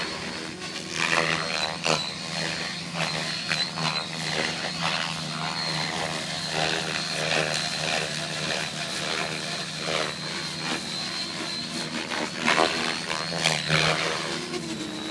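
Radio-controlled helicopter flying, a steady high whine over the buzz of its rotor, with the pitch wavering as it manoeuvres. A few sharp cracks cut in, the loudest near the end.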